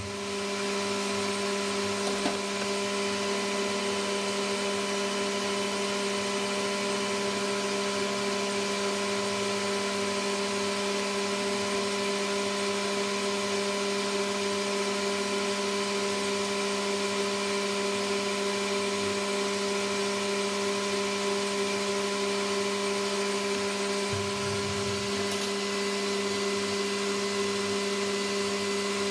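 AL960B metal lathe running steadily with its collet chuck spinning, a constant motor and gearbox whine over a low hum.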